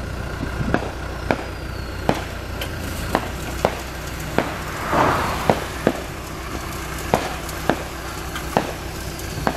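Hot asphalt mix being discharged from a road maintenance truck's chute onto the pavement, with sharp, irregular cracks and clacks about once or twice a second over a steady low engine hum. A rushing hiss swells briefly about five seconds in.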